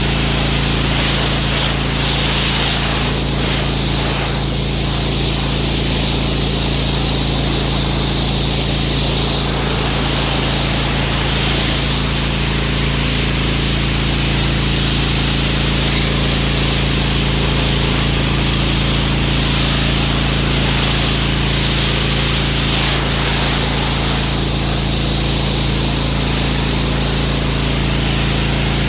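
Pressure washer running: a steady motor drone under the hiss of the water jet, which grows brighter and duller by turns.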